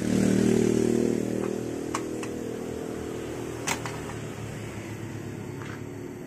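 A motor vehicle engine running with a steady hum, loudest at the start and slowly fading. A few light clicks of plastic come as the grille is handled.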